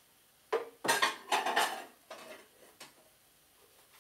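Kitchenware being handled: a sharp knock about half a second in, a cluster of clattering knocks and scrapes from about one to two seconds in, then a few fainter clinks.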